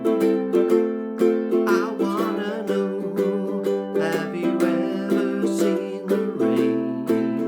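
Enya EUC-MAD ukulele with Aquila Lava strings in low-G tuning, strummed in a steady rhythm of chords.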